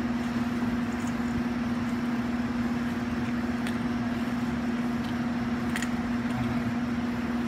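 A machine runs with a steady, even drone and a constant low hum, with a few faint clicks over it.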